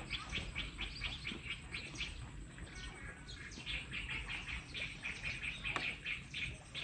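A small songbird chirping: a fast, steady series of short, high notes, about four or five a second.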